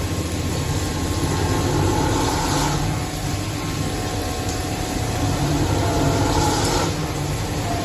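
CNC machine running while machining a round plate: steady mechanical noise with a low hum, and faint whining tones from the cut that come and go.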